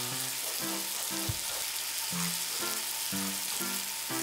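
Meat sizzling steadily on a grill, under background music of short pitched notes about two a second, with a brief low thump about a second in.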